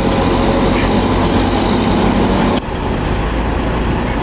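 Diesel engine of a backhoe loader running steadily. About two and a half seconds in it cuts abruptly to a slightly quieter, steady engine noise.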